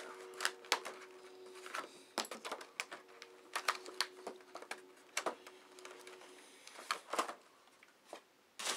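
Unboxing packaging being handled: irregular clicks, crackles and rustles of plastic and cardboard as a small part is pulled free of the box.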